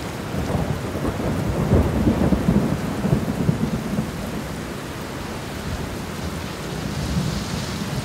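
Steady rain falling on foliage, with a low rumble of thunder through the first half that fades into the steady rain.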